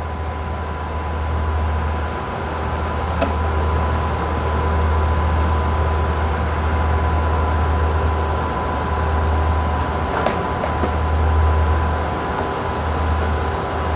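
Steady whir and hum of a running GatesAir ULXTE solid-state transmitter's cooling fans, with a steady high-pitched tone over it. Two faint clicks about three and ten seconds in, from screws going back into the power supply.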